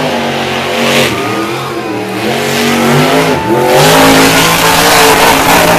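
Grinder monster truck's supercharged V8 running hard through a timed qualifying run, its revs climbing and dropping several times.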